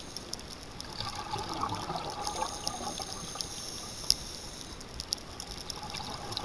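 Underwater sound through a camera housing: scuba regulator exhaust bubbles gurgling and hissing, with scattered faint clicks and one sharper click about four seconds in.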